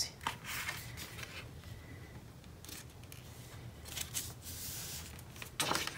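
Card stock and paper being handled and pressed into place: several short rustling, scraping strokes with a few light clicks.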